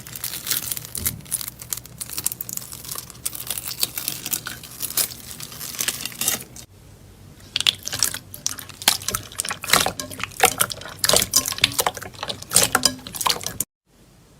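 Slime being squeezed and worked by hand, giving a dense stream of crackling, popping clicks. The sound changes briefly about halfway through as one clip gives way to the next, and it cuts off suddenly just before the end.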